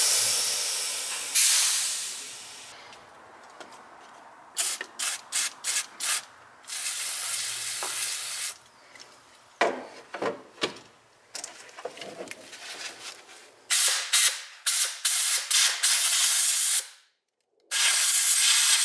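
Repeated hissing blasts of aerosol brake cleaner and a compressed-air blow gun, some long sprays and some runs of short quick puffs, cleaning dirt from around the base of the fuel injectors so it does not fall into the engine.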